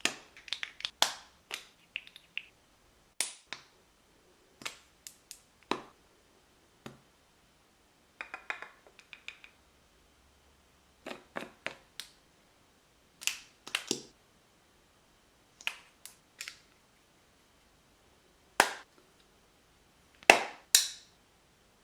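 Scattered sharp clicks and taps of small plastic makeup cases and lids being opened, snapped shut and set down, with quiet gaps between; the loudest few come near the end.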